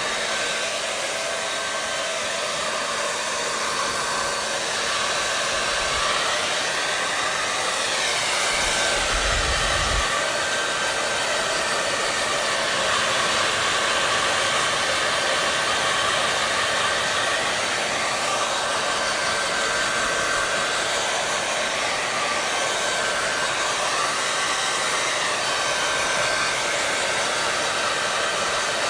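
Electric hair dryer running continuously: a steady blowing hiss of air with a thin, constant motor whine under it, the tone drifting slightly now and then. A brief low rumble comes about nine seconds in.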